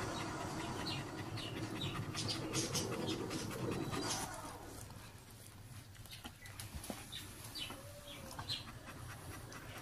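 German Shepherd dog panting hard in quick, rhythmic breaths through an open mouth. The panting is louder for the first few seconds and turns quieter about halfway through.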